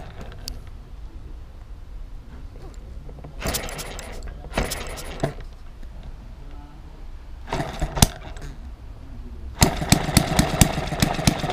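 Small model single-cylinder hit-and-miss engine, direct-driving a 70 mm propeller, being turned over by hand at its flywheel and giving a few short clattering bursts before it catches about ten seconds in. From then on it runs with a loud, rapid, regular beat of firing strokes.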